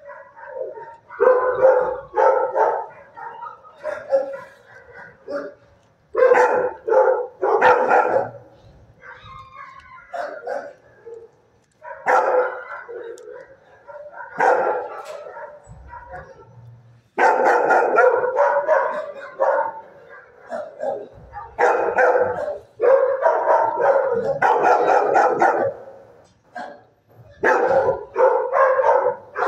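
Dog barking in repeated runs of barks with short quieter gaps between them, vocally eager for treats.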